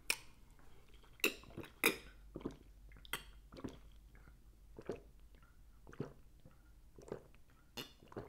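A person gulping water from a plastic water bottle, a string of short swallowing sounds roughly one a second.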